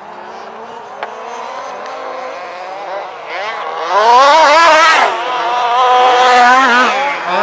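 Two-stroke petrol engines of 1/5-scale HPI Baja RC buggies racing, their pitch rising and falling as they rev and back off through the corners. From about four seconds in one buggy is loud and close, revving hard.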